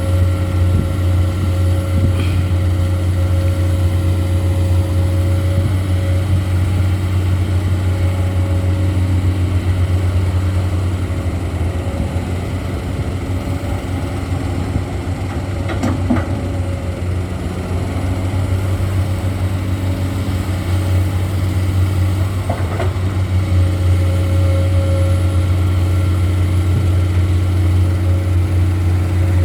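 Heavy diesel engine of a Komatsu PC200 excavator running steadily during loading, with a steady low hum and a few brief knocks about halfway through.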